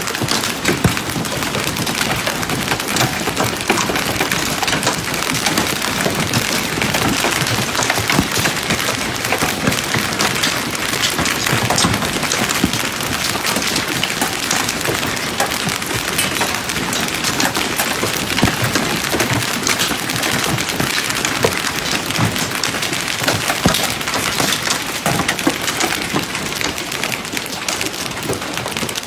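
Hailstones pelting the water of a swimming pool and the hard ground around it: a dense, steady clatter of splashes and many sharp knocks.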